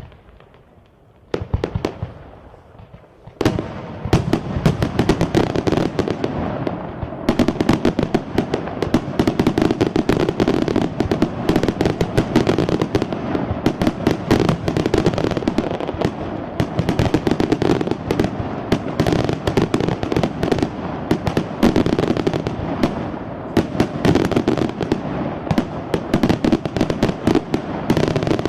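Fireworks display: a few scattered reports. Then, about three seconds in, a dense, continuous barrage of rapid bangs and crackling breaks out and keeps going without a pause.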